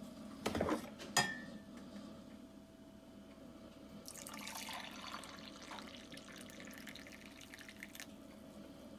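Two sharp knocks as the Mr. Coffee glass carafe is lifted out of the coffee maker, then coffee pouring from the carafe into a ceramic mug in a steady stream for about four seconds, over a faint steady hum.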